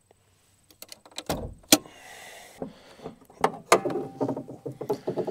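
The pickup's hood being unlatched and raised: a heavy thump about a second in, sharp clicks, a brief hiss, then a run of metallic clicks and rattles.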